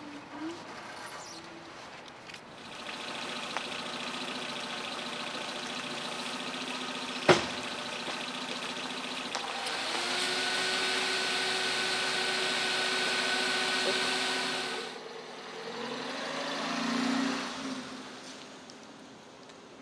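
Small hatchback's engine running steadily, with one sharp knock about seven seconds in. The engine gets louder about ten seconds in as the car drives off, and fades away a few seconds later.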